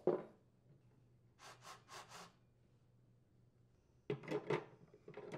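Faint handling noises from a chainsaw being worked on by hand: four short rubbing scrapes about a second and a half in, then a cluster of quick rustles and light knocks near the end.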